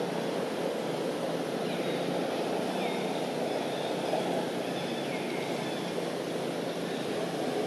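Steady outdoor background noise, a constant rushing hiss over a faint low hum, with a few faint high calls that fall in pitch.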